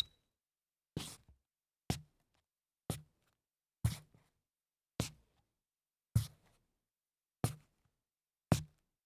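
Sneaker soles scuffing on a hollow wooden floor, nine short separate scuffs about a second apart, each a brief low thump with a scrape on top, with silence between them.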